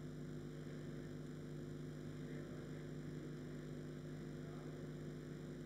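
Steady low electrical hum: a constant drone of a few fixed tones that does not change.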